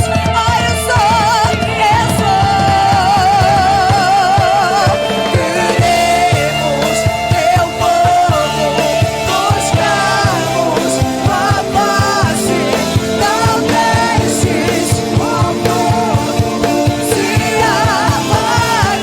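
Live church worship band playing, with drums keeping a steady beat and a voice singing long, wavering held notes over it.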